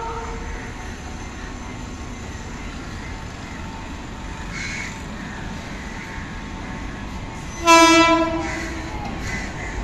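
Sri Lanka Railways S11 diesel multiple unit sounding one short, loud horn blast about three-quarters of the way in as it approaches, over a steady low rumble.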